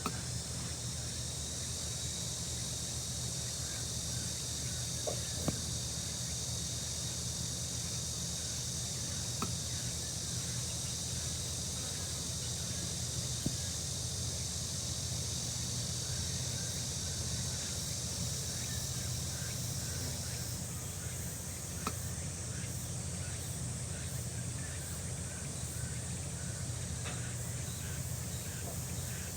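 Summer outdoor insect chorus: a steady high-pitched insect drone, part of which stops about two-thirds of the way through, over a low steady hum, with scattered faint chirps and a few small clicks.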